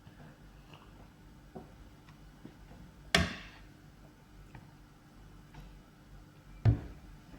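Two sharp knocks about three and a half seconds apart, the first trailing off with a short ringing tail, among faint small clicks from fried-egg eating.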